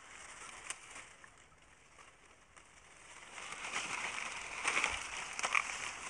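Dry grass and stalks rustling and crackling, with many small crackles, growing louder from about halfway through.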